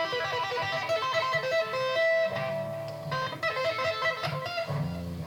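Guitar played solo in quick runs of single notes, ending on a low note that rings out near the end.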